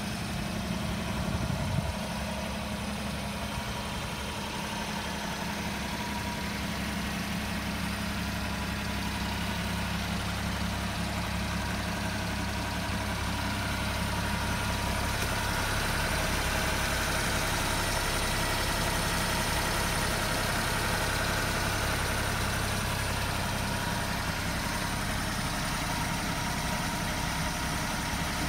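Daihatsu Hijet kei truck's engine idling steadily.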